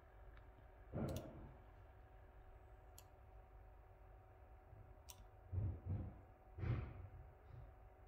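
A few faint, sharp clicks a couple of seconds apart from someone working a laptop's pointer buttons, with several soft low thumps in between.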